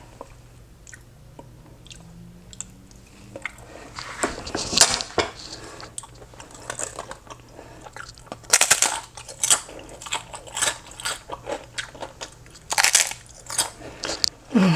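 Close-up crunching and chewing of a tortilla chip, starting about four seconds in as irregular sharp crunches that come loudest about halfway through and again near the end.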